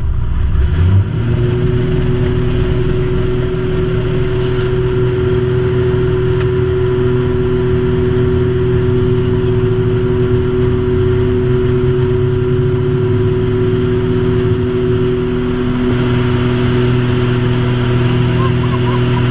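Votec V252 aerobatic plane's piston engine and propeller droning steadily, heard inside the cockpit; the note rises and settles into a steady drone in the first second or so.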